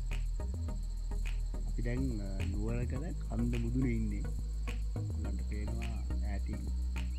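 Steady, shrill chorus of insects, crickets or cicadas, over background music that has a deep, continuous bass. A wavering melodic line comes in about two seconds in.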